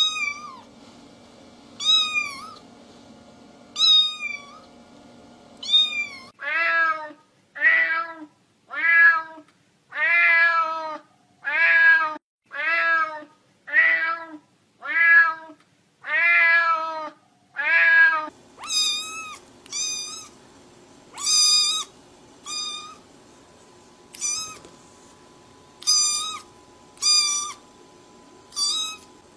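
Domestic cats meowing, one cat after another: first a high, thin meow about every two seconds, then a lower-voiced cat meowing about once a second a dozen times, then a high-pitched cat giving short meows, often two in quick succession.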